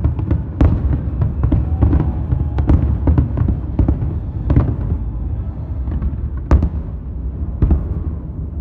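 Aerial fireworks display: a rapid, continuous barrage of bangs and crackles over a steady low rumble, with the sharpest reports about half a second in and again about six and a half seconds in.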